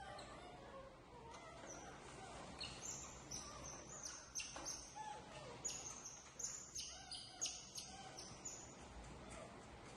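Birds chirping: a quick run of many short, high chirps from about two seconds in, over faint background noise.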